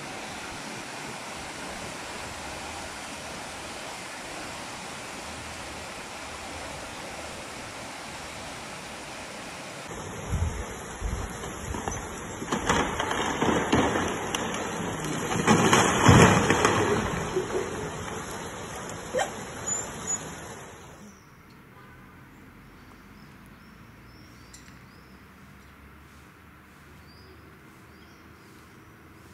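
Heavy rain pouring down steadily. About ten seconds in it changes to a storm: strong wind gusts with low rumbling surges that swell and fade, loudest in the middle, for about ten seconds. It then drops to a quiet outdoor background.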